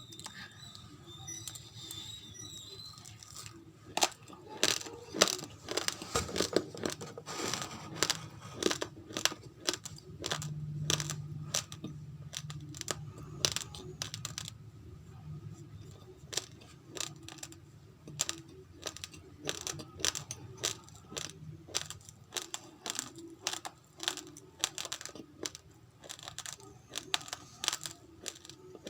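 Raw rice grains being crunched and chewed close to the microphone: many sharp cracks, densest from about four seconds in, then thinning to scattered crunches.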